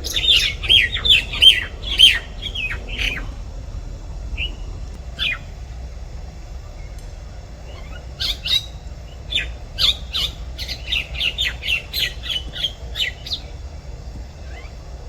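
A myna calling: a quick run of loud, pitch-bending calls at the start, a single call about five seconds in, then a second, longer run of rapid calls from about eight seconds in.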